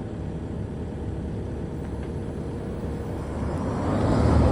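Excavator's diesel engine running steadily during unloading from a lowbed trailer. Near the end a louder rushing swell builds up.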